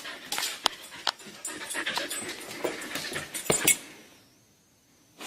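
A dog panting, with scattered clicks and scuffs; it cuts off about four seconds in.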